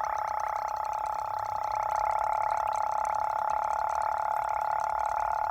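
Pressure kerosene lantern leaking air: a steady whistling tone with a light hiss, the symptom of a leaking air valve on the lantern's tank.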